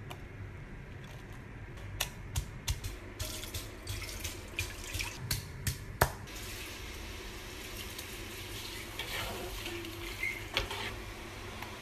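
Stone pestle pounding chillies and turmeric in a granite mortar: a run of irregular sharp knocks, the loudest about six seconds in. Then coconut milk poured into a pan, a steady running-liquid sound with a few light knocks.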